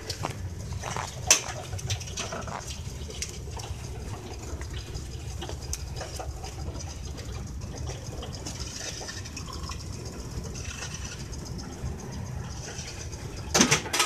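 5-inch gauge miniature train rolling along its track: a steady low rumble of wheels on the rails with scattered clicks, and a louder burst of clicking near the end.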